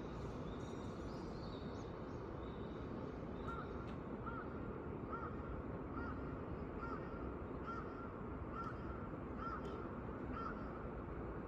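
A crow cawing in an even series of about nine caws, a little under one a second, starting a few seconds in. Behind it is a steady low hum of city background noise, with faint small-bird chirps.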